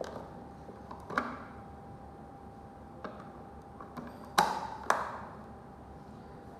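Small plastic clicks and taps as AA batteries are fitted into the battery compartment of a smart door lock's interior unit. The two loudest clicks come half a second apart near the end.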